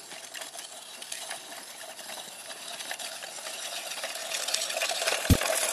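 Small motor and plastic drive of a motorized toy tractor running with a faint steady whine and constant clicking and rattling as it drives through snow, growing louder as it comes closer. A single sharp low thump about five seconds in.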